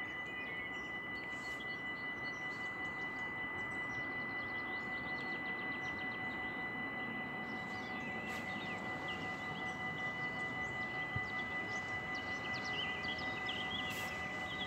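Dutch level-crossing warning bell ringing steadily with a rapid, even ring, over a low background rumble.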